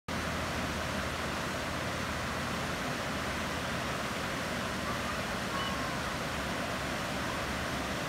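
Man-made waterfall cascading over rocks into a pond: a steady, even rushing of falling water.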